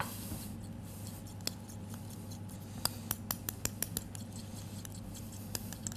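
A spoon stirring an oil and pomegranate-molasses dressing in a small glass bowl, clicking against the glass. The clicks come in quick, irregular ticks, a few at first, then many from about three seconds in.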